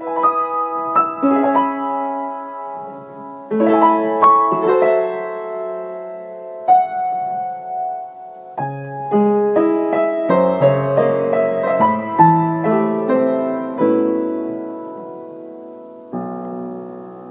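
Slow piano background music: gentle chords and a simple melody, each note struck and left to ring and fade.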